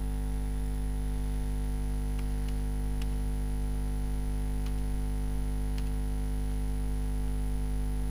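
Steady electrical mains hum, with a few faint, separate clicks of computer keyboard keys being typed.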